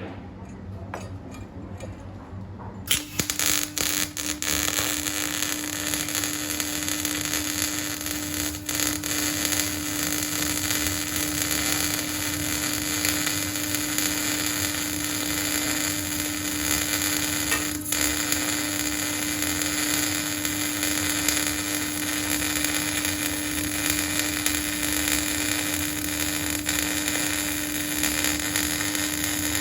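Arc welding a T-joint: the arc strikes about three seconds in with a few sharp crackles, then runs as a steady crackling hiss over a constant hum.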